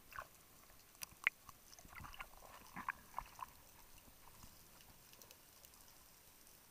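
Muffled underwater clicks and crackles heard through a mask-mounted dive camera's housing as a freediver dives down from the surface, a cluster of about a dozen in the first three and a half seconds, then only a faint steady hiss.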